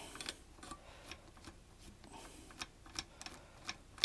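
Light clicking of a hex-bit driver on an extension as it turns out a cylinder bolt on a chainsaw engine: a run of short, sharp ticks, about three a second and unevenly spaced.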